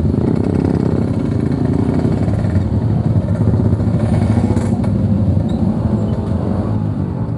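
Yamaha RX-King's 135cc two-stroke single-cylinder engine running steadily at low revs, with a rough, rattly exhaust note.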